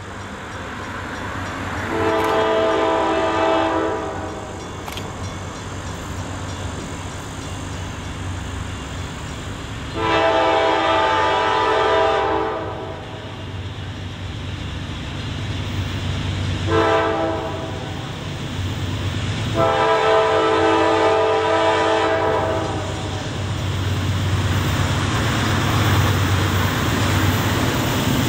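Approaching diesel freight locomotive sounding its multi-chime air horn in the long-long-short-long pattern, the standard grade-crossing warning. Under the horn the low rumble of the train grows steadily louder as it nears.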